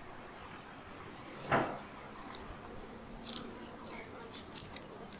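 Thin Bible pages being leafed through by hand: one louder page swish about one and a half seconds in, then light, crisp paper ticks and rustles.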